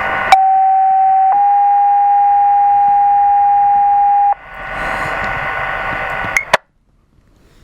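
Fire dispatch two-tone page over a radio: one steady tone for about a second, then a slightly higher tone held for about three seconds. Open-channel radio hiss follows and cuts off with a squelch click.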